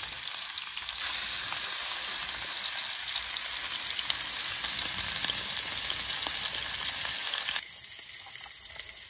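Marinated chicken breasts sizzling in hot oil in a nonstick frying pan on a propane camp stove. The sizzle gets louder about a second in as the second breast is laid in the pan, holds steady, then drops to a quieter hiss near the end.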